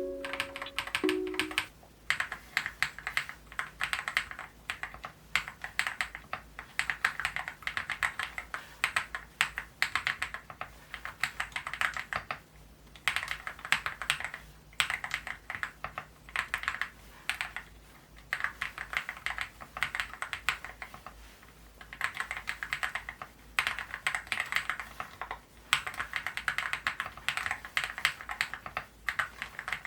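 Fast typing on a Leobog Hi75 full-aluminium mechanical keyboard with KTT Red Wine linear switches and XDA keycaps: dense runs of keystrokes in bursts of a few seconds, with short pauses between them.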